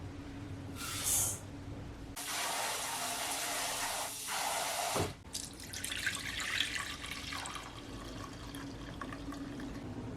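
Kitchen sink tap: a short spurt about a second in, then running steadily for about three seconds before being shut off, followed by water sloshing and small splashes in the sink.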